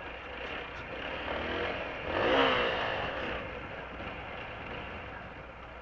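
Motorcycle riding along a rough, broken village road, its engine and road noise steady, with a louder swell of vehicle noise that peaks a little over two seconds in and then fades.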